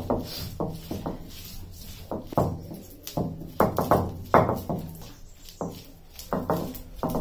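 Stone roller of an ammi grinding stone knocking down onto the stone slab, crushing roasted shallots, garlic and dried chillies: a quick, uneven run of knocks, about three a second.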